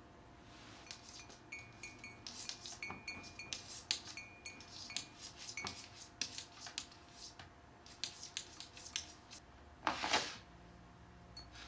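A cat's paw rapidly patting and scraping around a ceramic mug of water, making many light taps and clinks, some of which ring briefly like the mug being struck. About ten seconds in comes one louder, longer scuff as the paw reaches into the mug.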